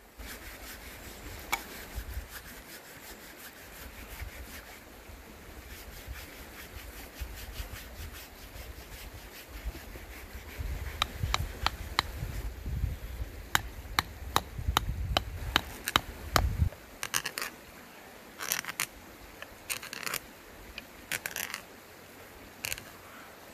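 Scotch-eyed hand auger boring into the end grain of a log section: a run of sharp wooden clicks and creaks as the bit is turned, then several longer scrapes as it cuts.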